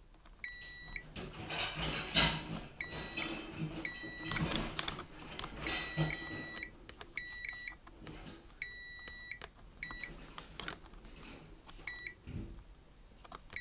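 Digital multimeter's continuity beeper sounding on and off in short and longer high beeps as the probe tips are touched across capacitors on the LCD panel's circuit board, with faint clicks and scrapes of the probes on the board.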